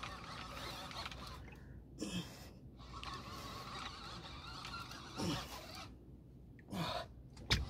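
Large conventional fishing reel being cranked under load as a heavy tusk is pumped up from deep water, a steady faint whirr, broken by four short low grunts of effort, each falling in pitch.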